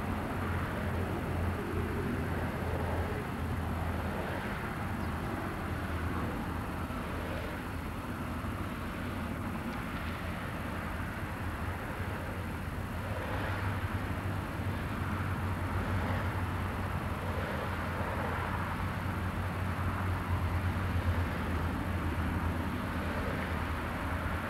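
NSW 81 class diesel-electric locomotive, with its EMD 16-645 two-stroke V16, running steadily at the head of a loaded coal train with a low engine drone, growing a little louder in the second half as it approaches.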